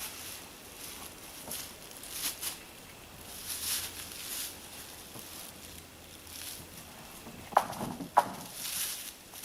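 Irregular rustling steps on dry forest litter, with two sharp knocks a little over half a second apart near the end.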